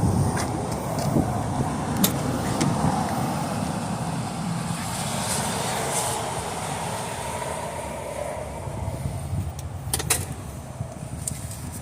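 Engine of a Polaris Xpedition side-by-side running, loudest at the start and easing off, with a few sharp clicks about two seconds and ten seconds in.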